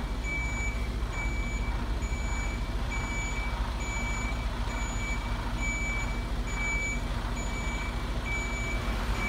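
Truck reversing alarm beeping at an even pace, a little faster than once a second, over the steady hum of a running truck engine.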